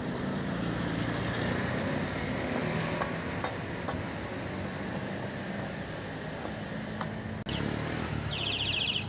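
A steady low engine drone runs throughout, with a few light clicks. It drops out briefly near the end, then comes back with a short rapid rasp.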